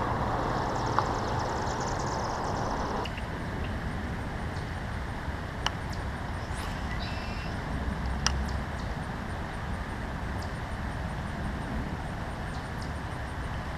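Steady outdoor background noise, an even hiss, with a few faint clicks.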